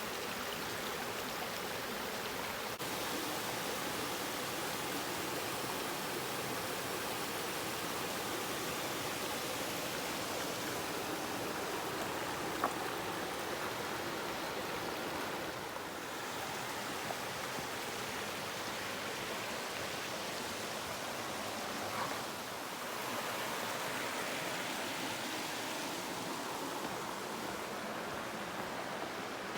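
Steady rushing of stream water, an even hiss that barely changes, with a faint tick or two.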